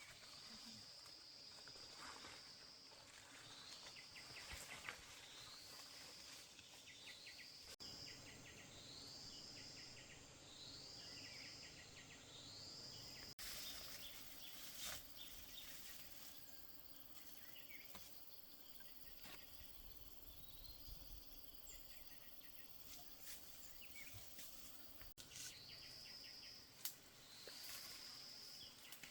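Quiet rural ambience with a small animal's high-pitched call repeated about every second and a half; each call is a quick upward sweep held for about a second. The calls stop for a long stretch in the middle and come back near the end.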